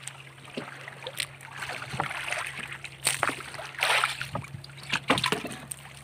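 Sea water lapping and splashing against the hull of a small outrigger canoe in irregular surges, over a steady low hum.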